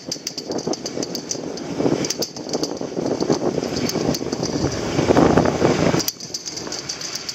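Skis sliding and scraping over packed snow while being towed up a poma surface lift, a rough hiss that swells and fades, loudest about five seconds in and dropping off sharply soon after, with light rapid ticks throughout.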